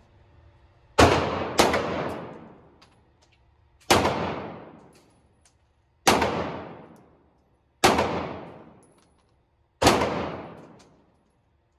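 Glock 48 9mm pistol fired six times: two quick shots about a second in, then single shots roughly every two seconds. Each shot echoes and dies away slowly in the enclosed range.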